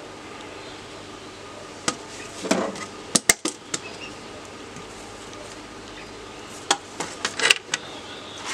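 Sharp plastic clicks and knocks from a keyboard being taken apart by hand: keycaps and parts being handled and set down. The clicks come in two clusters, the first about two seconds in and the second near the end, with the loudest click about three seconds in.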